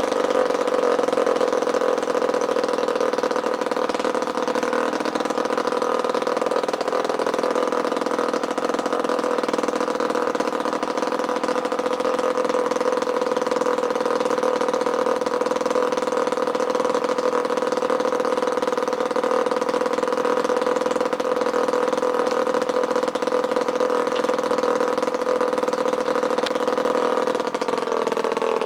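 Stuart 29.9 cc water-cooled petrol model engine running steadily at an even speed, its pitch dipping slightly near the end.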